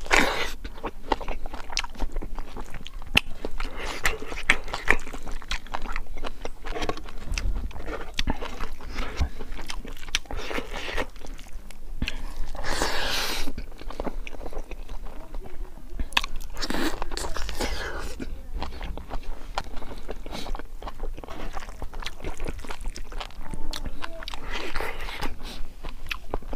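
Close-up chewing and crunching of crispy pork and rice, with frequent wet mouth and lip clicks and a few breathy smacks.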